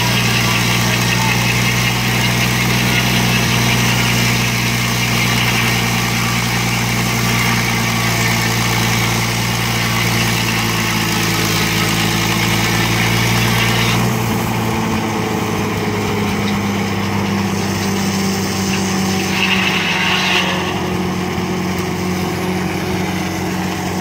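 Engine of a portable circular sawmill running steadily. About 14 seconds in, its sound changes abruptly: the deep rumble drops out and it gets a little quieter.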